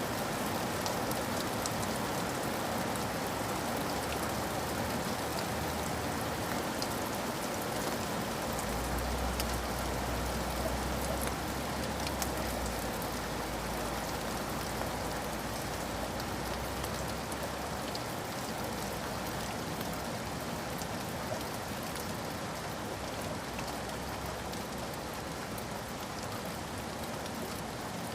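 Steady rain falling on a surface, an even hiss with scattered individual drop hits. A low rumble sits under the rain from about a third of the way in for several seconds, then fades.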